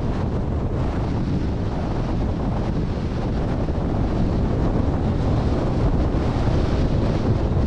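Strong wind buffeting the microphone: a loud, steady rush with heavy low rumble.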